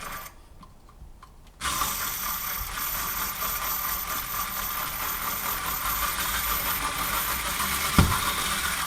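Old Black & Decker slow, high-torque power screwdriver starting about a second and a half in and running steadily, its motor and gears whirring as it turns out a long, tight flathead screw. A single sharp knock near the end as the bit slips in the screw's slot but stays on.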